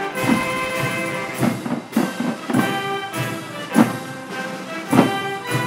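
Military band music: sustained brass chords with drum strokes.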